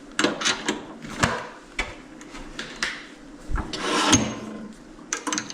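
A lathe tailstock being slid along the bed and locked against the work: a string of separate metal clunks and clicks, with a short scrape about four seconds in.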